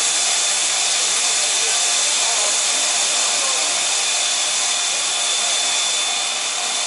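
C58 steam locomotive standing at the platform, hissing steam loudly and steadily. The hiss sits high, with a thin steady whistle-like tone running through it.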